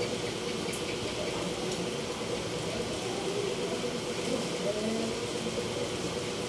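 A steady electric hum with a constant hiss, an even machine drone with no changes, and faint voices in the background.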